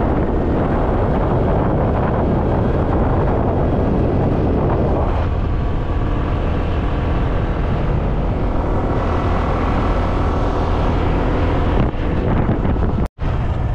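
Motorcycle engine running steadily at road speed under heavy wind rush on the microphone; from about five seconds in the engine's steady hum comes through more clearly as the wind eases. The sound cuts out for a moment near the end.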